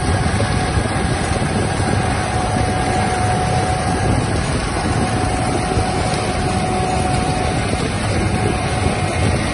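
Chicory root harvester and tractor running steadily as they lift chicory roots, a dense machine noise with a low hum and a faint steady whine above it.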